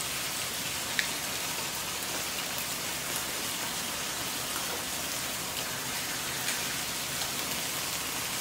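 Meat sizzling as it grills: a steady hiss with scattered small pops and crackles, one sharper pop about a second in.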